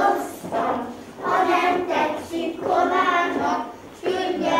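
A group of young children singing a song together, in short phrases with brief pauses between.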